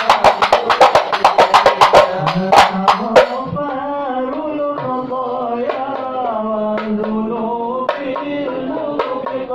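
Hand drums beaten fast, about six strokes a second, for the first three seconds, then voices singing a devotional Arabic chant (sholawat) with only an occasional drum stroke.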